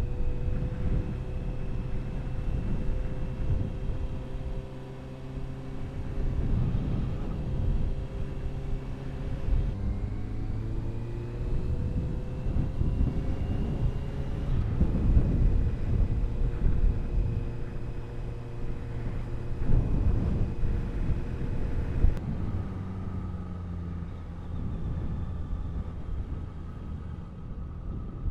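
Honda CBR650F inline-four running through an aftermarket Ixil exhaust while under way, with a low rumble of wind on the microphone. The engine note drops about ten seconds in, then climbs steadily for a few seconds, and drops to a lower note again about twenty-two seconds in.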